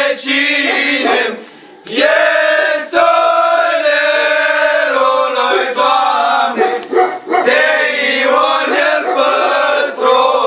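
A group of young men singing an old Romanian antiphonal Christmas carol (colindă) together in long, held notes, with a short break about two seconds in before the next phrase.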